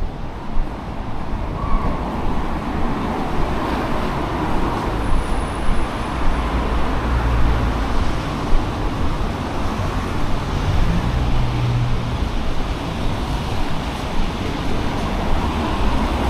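Road traffic passing on a city street: a steady rush of tyres and engines, with a low engine rumble swelling twice around the middle.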